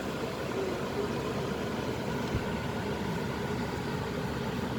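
Steady low rumble and hiss of highway traffic: vehicle engines and tyres, with no horn sounding.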